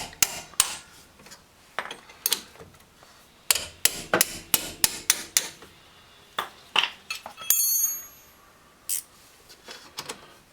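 Irregular metal clinks and knocks of a wrench and other hand tools on the rear brake caliper and its bolts, with a brief high ringing clang of metal about seven and a half seconds in.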